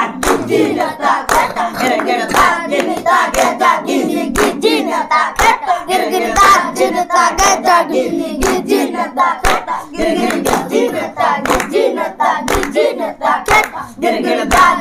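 A group of boys chanting drum syllables in chorus (mukher bajna, the spoken rhythm of Chhau dance drumming) while clapping the beat, about one clap a second.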